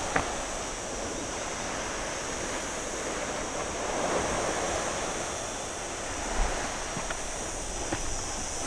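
Sea waves washing steadily on the shore, the wash swelling about halfway through, with a few light taps such as footsteps.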